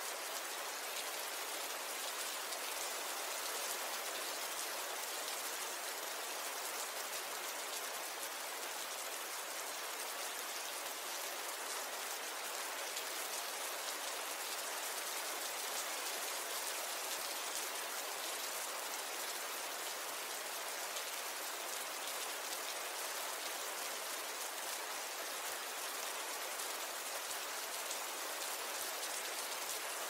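Steady rain falling: an even hiss of many fine drops, bright and constant, with almost no low rumble.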